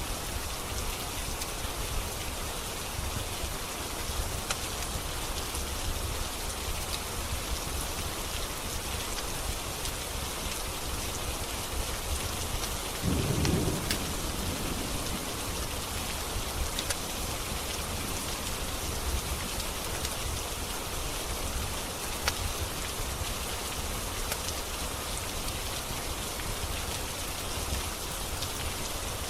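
Steady rain falling, with scattered sharp crackles from a wood fire in a fireplace. About halfway through comes a short low rumble of thunder.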